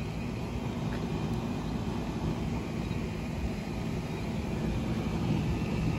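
Storm wind blowing steadily and buffeting the microphone, heard as a low rumble.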